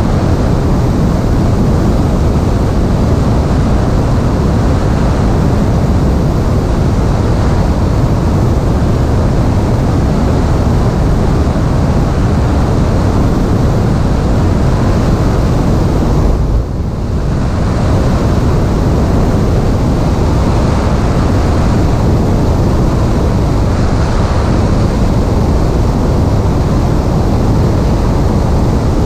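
Steady, loud rush of airflow over a camera microphone mounted on a Piper Cherokee's stabilator, mixed with the plane's engine and propeller noise. The noise dips briefly about seventeen seconds in.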